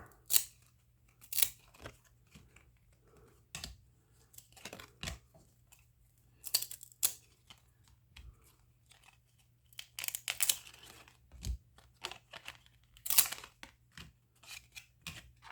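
Baseball trading cards and their pack wrappers being handled: a string of short, irregular rustles, crackles and tearing snaps, with brief quiet gaps between them.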